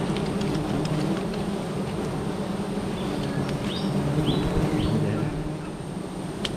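Honey bees buzzing in a low steady hum, with several short, falling bird chirps about three to five seconds in.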